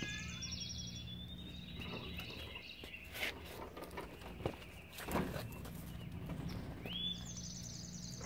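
Birds singing outdoors, with quick high trills near the start and end and gliding chirps between. Footsteps and a few sharp knocks on concrete sound under them, the loudest about five seconds in, over a faint steady low hum.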